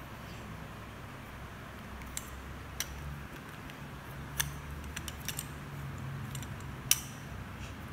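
Irregular sharp clicks and taps of a plastic toy rolling pin knocking on a tiled floor as it is rolled over modelling dough, the loudest one near the end, over a steady low hum.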